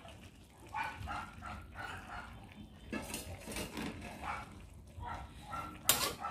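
A dog barking repeatedly in short barks, with a louder sharp sound near the end.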